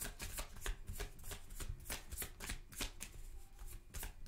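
Tarot deck being shuffled by hand: a continuous run of short card flicks, about four or five a second.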